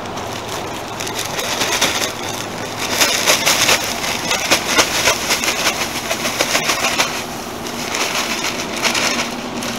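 Loose pine shavings pouring and shaking out of a plastic bag onto a straw compost heap: a dry rustling hiss full of fine crackles, loudest from about three seconds in and again near the end. Under it runs the steady drone of a greenhouse exhaust fan.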